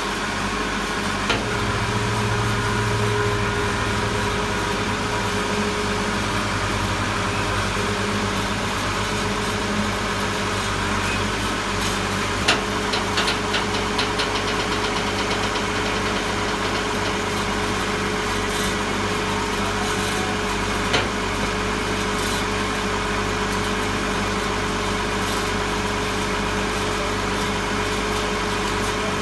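Tractor engine idling steadily, with a few sharp clicks and knocks about halfway through and once more later.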